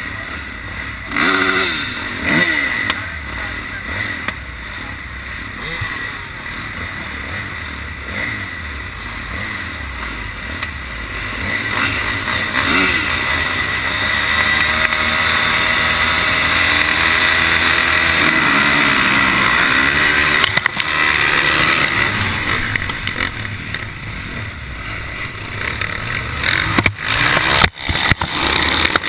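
Motocross bike engines running on a start line, revving up in several rising sweeps and growing louder through the middle. A few sharp knocks and clatter come near the end as the start breaks out.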